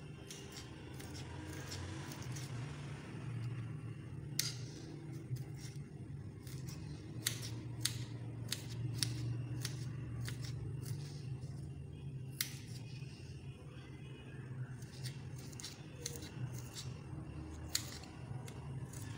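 Kitchen knife slicing fresh ginger into thin strips on a hard stone countertop: irregular sharp taps of the blade striking the counter, most of them after the first few seconds, over a steady low hum.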